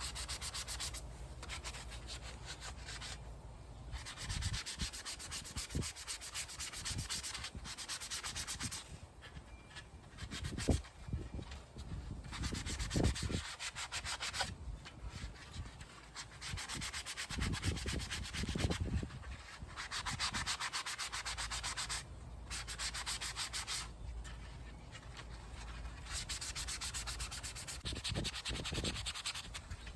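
Sandpaper being worked over a 3D-printed plastic helmet, a scratchy rubbing in stretches of a few seconds that stop and start, with a few handling knocks in the middle.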